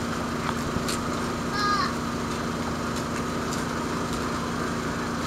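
Steady drone of parked diesel trucks idling, with an even low hum and rumble. A short high call cuts through about a second and a half in.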